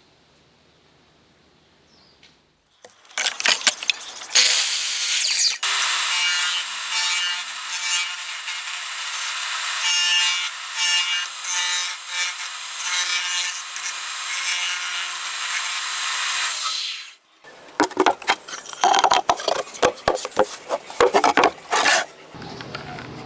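Electric disc sander running while the corner of a hardwood board is pressed against it and ground to a rounded shape, a loud steady grinding with a motor hum under it; it starts about three seconds in and stops sharply after about fourteen seconds. Then come a few seconds of rapid scratchy strokes on wood.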